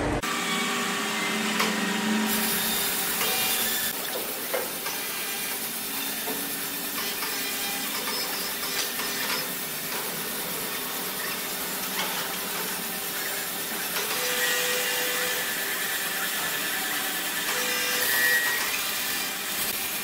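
Large horizontal band sawmill running, a steady mechanical noise with a hum, broken by a few short clacks.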